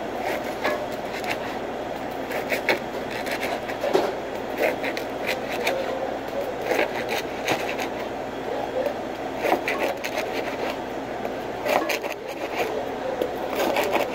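Commercial kitchen background: a steady hum with scattered clicks, knocks and scrapes of hands and utensils at work on a long baguette sandwich.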